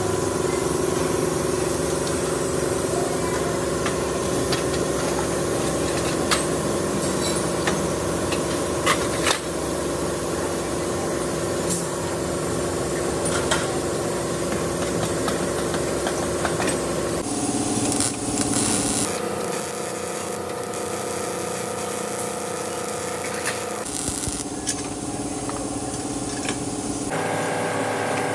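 Steady hum of workshop machinery, with occasional light clicks and clanks of metal being handled. The hum changes abruptly several times in the second half.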